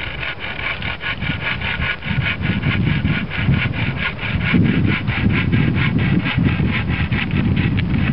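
Improvised bow saw, a thin saw blade sprung in a bent hazel branch, cutting across a wooden pole with rapid, even rasping strokes.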